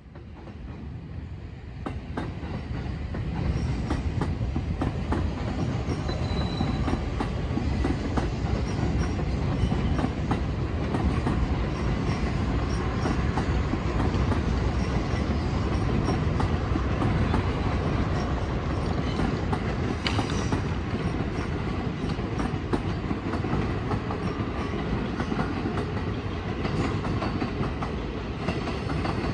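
Electric commuter trains rolling slowly through the station approach, wheels clattering over rail joints and points in a steady rumble that builds over the first few seconds. A brief wheel squeal comes about six seconds in.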